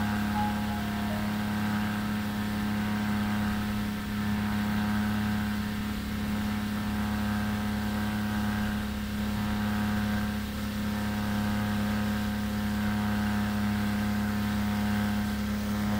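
Outboard motor driving a small boat at a steady cruising speed: an even engine hum with an unchanging pitch, under the hiss of the wake and rushing water.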